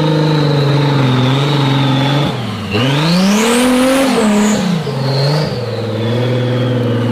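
Engine of a lifted, mud-covered Jeep off-roader driving through deep mud. It runs at a steady pitch, dips, revs up about three seconds in, then settles back to a steady pull.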